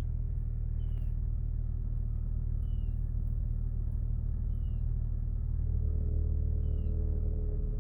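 Jeep Wrangler engine idling steadily at a stop after a throttle body cleaning, with no surge in revs: the rough idle is much improved. A short high chirp repeats about every two seconds over the idle.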